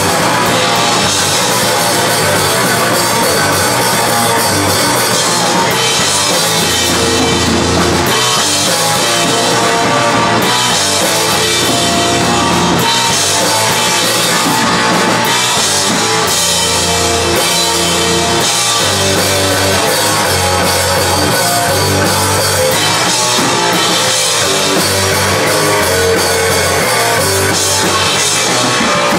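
Live rock band playing loud: electric guitar over a drum kit with cymbals.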